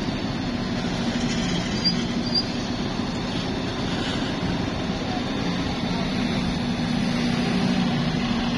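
An engine running steadily with a low, even hum over a wash of outdoor noise, with a couple of faint high chirps about two seconds in.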